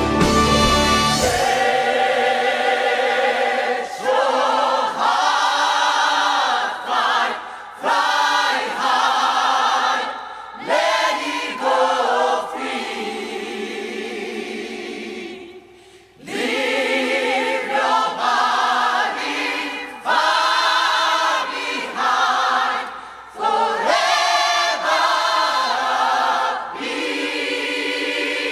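Several voices singing in harmony without accompaniment, in phrases with short breaks between them. The full band with bass drops out about a second and a half in.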